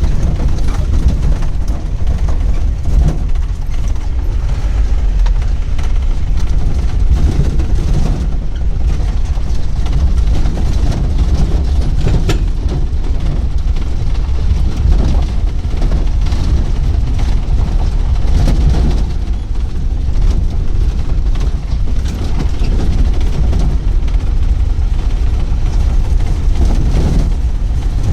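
Pickup jeep driving over a rough dirt track: a steady low rumble with frequent knocks and rattles as the vehicle jolts.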